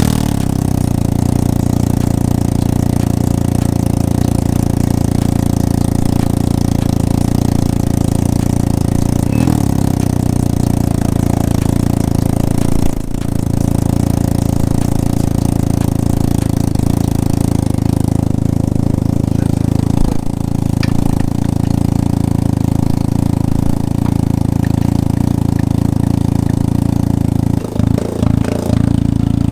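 Can-Am Ryker Rally's three-cylinder engine idling steadily through an aftermarket RLS Echo Series exhaust, just after start-up. Near the end the sound becomes uneven for a couple of seconds.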